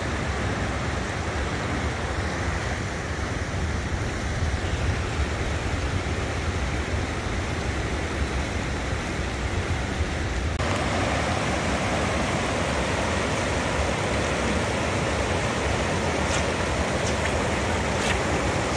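Steady rush of flowing river water. Its tone changes abruptly about ten seconds in, and a few faint clicks come near the end.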